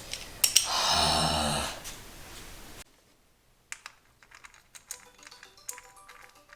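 Small metal clicks and ticks of hand tools and bolts being handled during work on a car engine, following a loud rustling noise in the first couple of seconds that cuts off abruptly.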